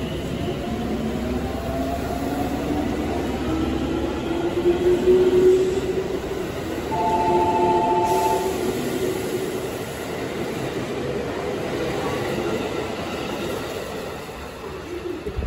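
JR Central 313 series electric train pulling out, its inverter-driven traction motors whining upward in pitch as it accelerates, over the rumble of its wheels on the rails. About seven seconds in, a short steady two-note tone sounds for a second and a half.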